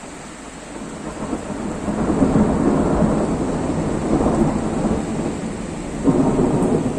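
Thunder rumbling over steady heavy rain. It builds about a second in and swells again near the end.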